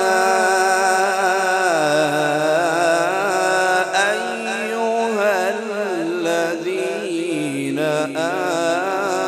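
A man's voice reciting the Quran in the melodic tajwid style: long drawn-out phrases with the pitch wavering and sliding in ornaments, stepping down a couple of times.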